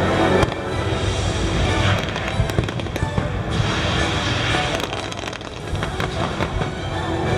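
Fireworks bursting and crackling in quick succession over loud show music.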